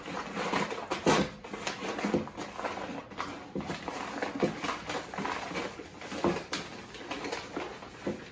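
Thick packing paper rustling and crinkling as it is pulled off a glass by hand, in irregular crackles and scrunches, the loudest about a second in.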